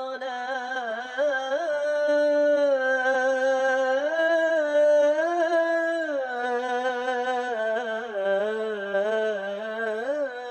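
A single voice singing unaccompanied: long held notes with ornamented turns, rising for a stretch in the middle and then settling lower.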